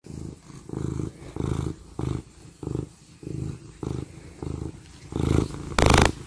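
Tabby cat purring close up against the microphone, the purr swelling and fading in a steady rhythm with its breaths, about one pulse every half second or so. Near the end comes one louder, harsher burst.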